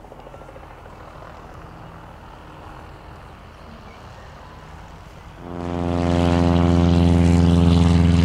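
Faint background hum, then about five and a half seconds in a propeller aircraft's piston engine becomes loud within a second and runs steadily at an even pitch.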